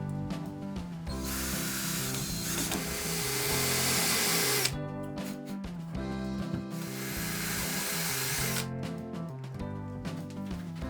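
A power tool runs twice, for about three and a half seconds and then about two seconds, over background music.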